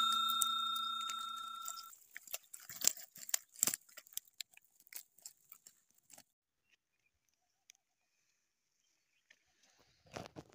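A bell-like ding from a subscribe-button sound effect rings and fades away over about two seconds, followed by scattered light clicks and taps.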